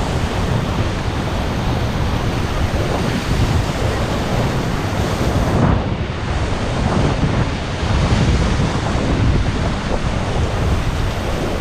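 Loud, steady rush of whitewater as a raft runs a rapid, with wind buffeting the microphone.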